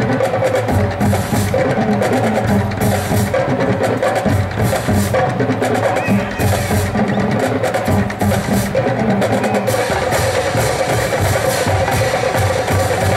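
High school marching drumline playing a fast, dense percussion passage without a break: rapid snare and tenor drum strokes over pitched bass drums.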